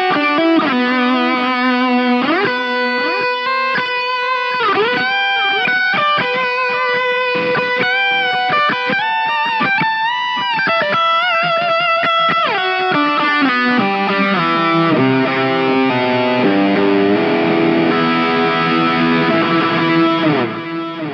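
Yamaha Pacifica 212 electric guitar played through a Line 6 POD GO on a lead-with-delay preset: overdriven sustained lead notes with string bends and vibrato. About two-thirds of the way through it moves to lower held chords, which fade out near the end.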